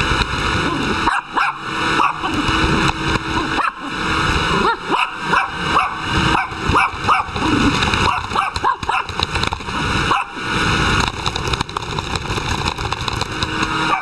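Small dog barking and yipping again and again, over a steady noise.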